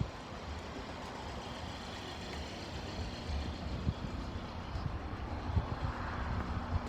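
Motor vehicle noise: a steady engine and traffic hum with a low rumble, growing a little louder near the end as a steady hum joins in.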